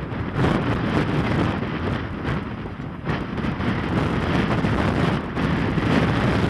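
A rally car's engine running hard along a dirt track in the distance, under heavy wind rumble on the microphone.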